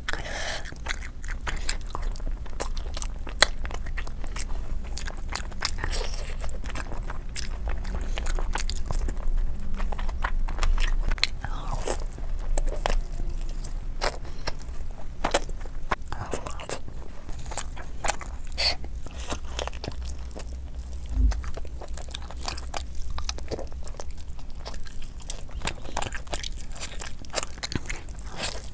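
Close-miked eating: a person chewing and biting into curried chicken and rice eaten by hand, with frequent short wet mouth clicks and smacks.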